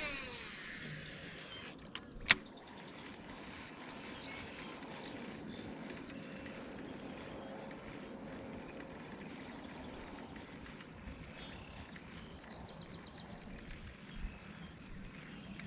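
A fishing reel's spool whirring as a cast goes out, the whine falling in pitch over about a second and a half, followed by a sharp click a little over two seconds in. A steady low hum runs under the rest.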